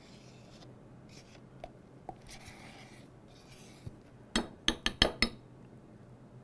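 A metal spoon scraping chocolate frosting out of a plastic tub, then five quick taps of the spoon on the rim of a glass Pyrex measuring cup about four seconds in, knocking the frosting off.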